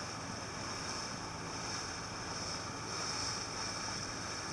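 Dive boat under way: a steady rush of wind and water with no breaks or distinct strikes.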